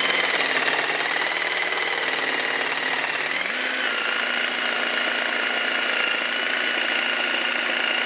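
Starrett S7010 jigsaw running steadily while it cuts through soft pine with a dull blade, its note shifting a little about three and a half seconds in. The blade is dull enough that it wanders off the line.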